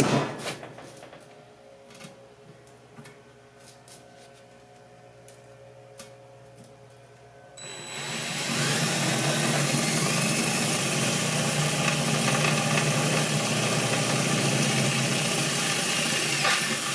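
Electric drill boring through a sheet-metal wood stovepipe. After a few faint clicks of handling, the drill starts about a third of the way in with a rising whine, runs steadily under load for about nine seconds, then stops.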